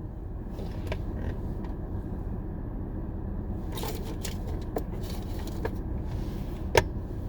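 Steady low rumble of a car interior, with a few light clicks and scrapes from handling things in the seat; the sharpest click comes near the end.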